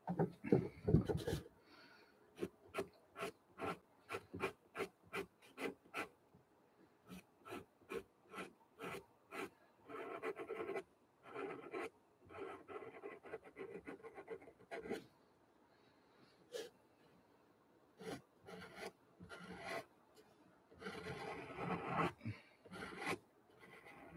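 Pastel pencil scratching on gesso-coated watercolour paper: short quick strokes about three a second, then longer stretches of continuous scribbling with pauses between them.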